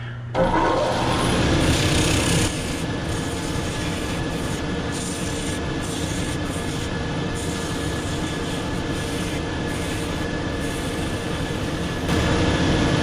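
Shoe-repair finishing machine starting up and running, its 24-grit sanding belt grinding down the edge of a soft Birkenstock sole. The grinding is louder in the first couple of seconds and again near the end.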